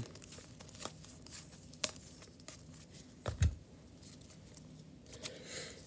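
Faint clicks and slides of trading cards being flipped through by hand, with a thump a little over three seconds in.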